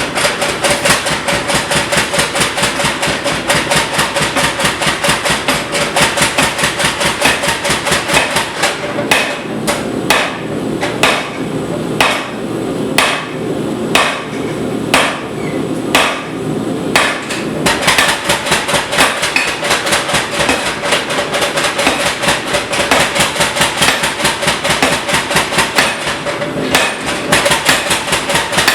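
Blacksmith's hammer striking on an anvil: a fast run of blows that slows to about one strike a second in the middle, then speeds up again, with a steady ring from the anvil under the strikes.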